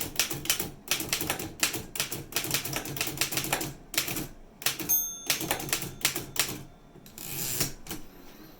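1902 Smith Premier No. 4 typewriter being typed on: a rapid run of sharp keystrokes, a short ring of the margin bell about halfway through, a few more keystrokes, then a longer sliding noise like the carriage being returned near the end.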